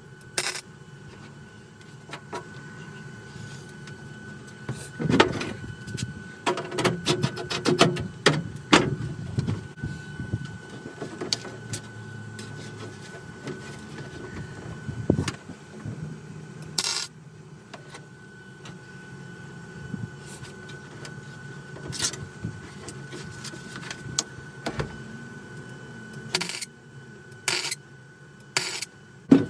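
MIG welder laying short tack and stitch welds on a steel car floor pan. There is a run of crackling welds about five to nine seconds in, then single short sharp pops a few seconds apart, over a steady faint whine. The welding is done in short bursts, moving from spot to spot so the thin sheet metal does not burn through.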